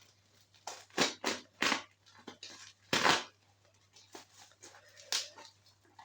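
A plastic shipping package being handled and opened, giving a series of short rustling crinkles, the loudest about three seconds in.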